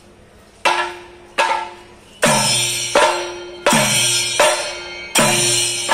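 Chenda drums and ilathalam hand cymbals of a Kerala temple percussion ensemble playing a slow, even beat, one stroke about every three quarters of a second, each ringing down. From about two seconds in, every second stroke carries a longer metallic cymbal ring.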